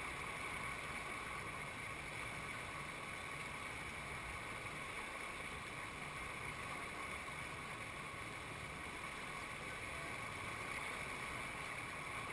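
Steady rush of river whitewater breaking over a rock ledge into a standing wave, unchanging throughout.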